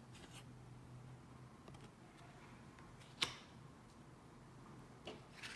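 Tarot cards being handled in a quiet pause: one sharp click about three seconds in, with a few fainter soft clicks near the start and near the end.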